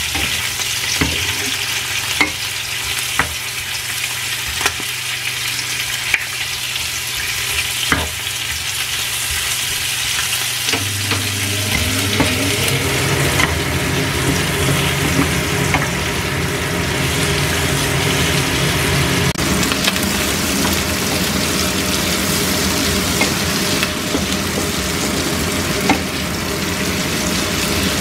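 Duck tongues, ginger, shallots and garlic sizzling in oil in a granite-coated frying pan as they are sautéed until fragrant, stirred with a wooden spatula that knocks and scrapes against the pan now and then. About eleven seconds in, a low steady hum joins the sizzle.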